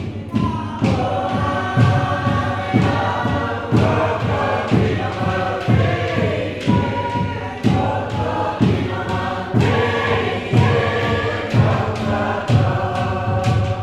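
A choir of mixed voices singing a Polynesian song in chant style. Under it a drum-like beat strikes steadily about once a second.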